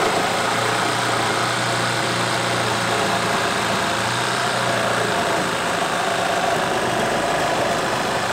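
Hyper Tough cordless reciprocating saw running steadily under load, its stock wood blade cutting through a 2x4.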